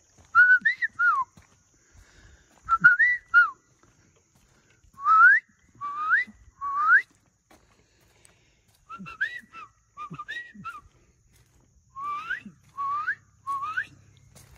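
A person whistling close by: five short bursts of sliding whistled notes, several of them three quick rising whistles in a row.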